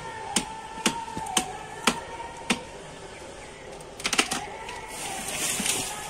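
Hasua sickle chopping into a soft moringa (drumstick tree) branch: sharp blade strikes about twice a second, six in the first two and a half seconds. Around four seconds comes a quick cluster of cracks as the branch gives way, then a rustling rush of leaves and twigs as it comes down.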